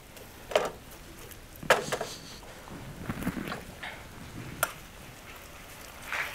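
Metal serving spoon clinking and scraping against a frying pan as barbecue sauce is spooned over meatballs: a few sharp clinks, the loudest near the second mark, over light sizzling of the sauce.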